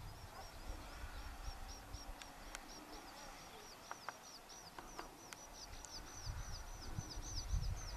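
A bird calling in a fast, even run of short high chirps, several a second, over low wind rumble on the microphone.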